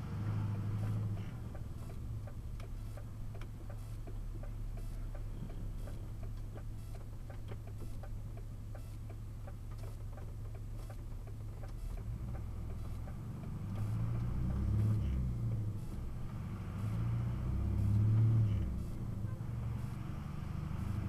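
Truck engine running low while the vehicle moves slowly, heard from inside the cab, with a faint regular ticking throughout. The engine revs up and falls back twice in the last third.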